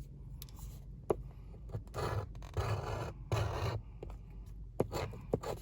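A coin scraping the scratch-off coating from a paper lottery ticket in three short strokes about two seconds in, with a few light ticks of the coin against the card.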